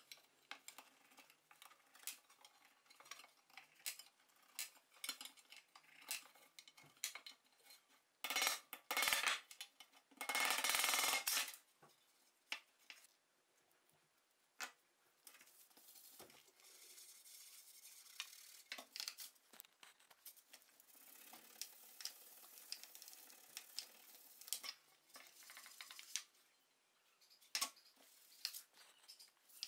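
A metal tool scraping and clicking against the inside of a brass scale pan, with two louder scrapes of about a second and a half each about a third of the way in. After that comes a quieter, longer stretch of rubbing as a cloth is worked around the pan, with scattered light clicks.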